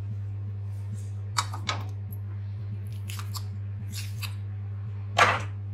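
Spoonfuls of ghee being dropped into oil in a kadhai: a handful of short scrapes and taps of the spoon against the pan, the loudest near the end, over a steady low hum.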